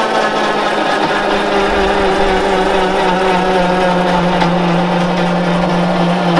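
Electric winch motor running steadily under load as it hauls a quad up loading ramps, powered by the quad's small battery. Its hum sags slightly in pitch just as it starts.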